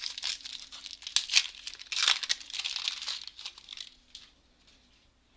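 Crinkling and tearing of a trading-card pack wrapper being ripped open and handled, loudest in the first three seconds, then dying away.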